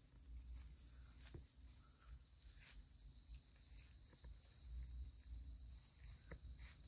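Steady, quiet, high-pitched chorus of insects, with a few faint clicks of footsteps.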